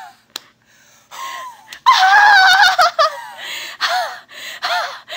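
A high voice doing an old person's laugh: a short note about a second in, then a loud, quavering, high-pitched cackle, followed by a run of breathy laugh pulses, about two or three a second.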